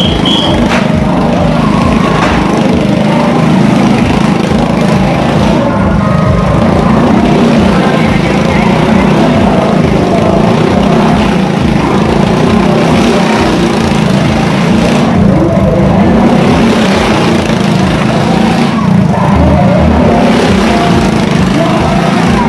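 Motorcycle engine running loud and steady as a rider circles the vertical wooden wall of a Wall of Death drum.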